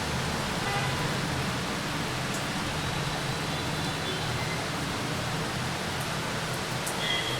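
Steady rain hiss mixed with the low rumble of passing road traffic, with a few faint high chirps or squeaks.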